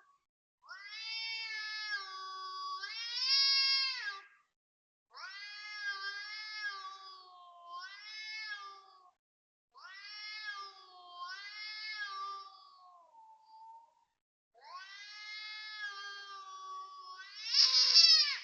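A cat yowling loudly, a string of long drawn-out wailing calls one after another with short breaks, the last one rising and loudest near the end.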